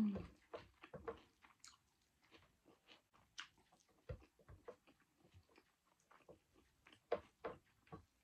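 Close-miked chewing of a mouthful of rice and greens, with irregular wet mouth smacks and clicks. They are a little louder at the start and again about seven seconds in.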